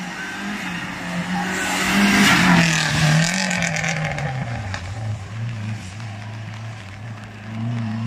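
Slalom race car passing close at speed about two seconds in, its engine revving up and down with a rush of tyre noise on the wet tarmac, then pulling away on a lower, steadier engine note that climbs again near the end.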